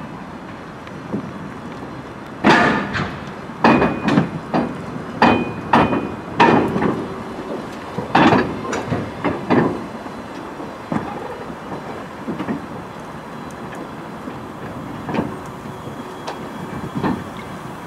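Old DR1A diesel-multiple-unit cars rolling slowly past on worn track: irregular sharp metallic clanks and bangs from the wheels and couplings, some with a brief ringing. The clanks come thick in the first half and thin out to a few knocks later.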